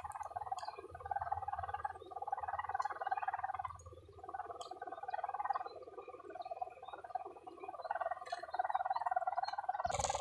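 Buzzing drone of a pegon kite's hummer (sendaren) aloft in gusty wind, swelling and fading in waves and dropping out briefly a few times as the wind eases, over a low rumble of wind.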